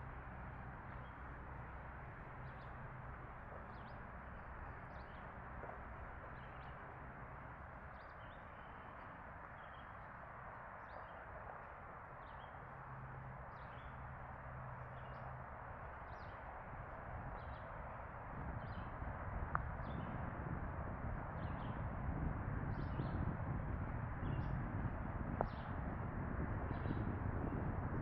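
A bird chirping over and over in short, high notes, about once a second, over a steady background hiss. About two-thirds of the way in, a low rumble grows louder.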